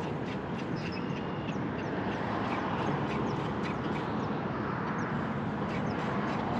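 Many short, high bird calls over a steady rushing background noise.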